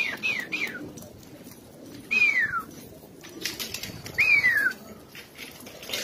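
Pigeons in a loft flapping their wings, with low cooing underneath. Sharp falling whistled notes cut through: two quick ones at the start, then a longer one about two seconds in and another about four seconds in.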